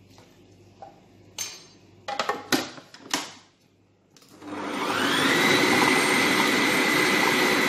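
Plastic lid and feed tube of a food processor clicked into place, then its motor starts about four seconds in and runs steadily with a high whine, grinding a raw sardine, herb and spice mixture.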